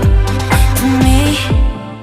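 Background music with an electronic beat: a deep kick drum with a falling pitch about twice a second under a melody line, with the drums and bass dropping out near the end.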